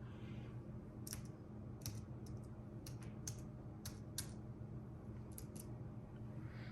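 Computer keyboard typing: about a dozen light key clicks in uneven runs over a faint, steady low hum.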